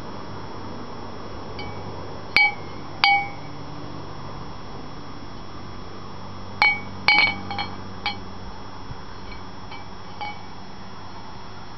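Candle cup inside a painted wine-bottle lantern clanking against the glass as the bottle is turned, giving light ringing clinks that all ring at the same note. Two come about two and three seconds in, then a quick cluster of several around seven to eight seconds, and a few fainter ones near the end.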